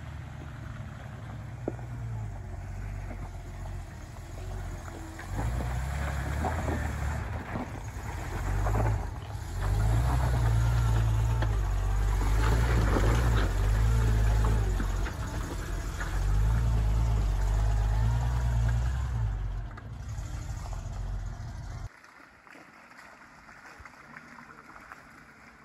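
An off-road vehicle's engine running as it works its way along a rocky trail, with a heavy low rumble that swells and fades and cuts off sharply about 22 seconds in.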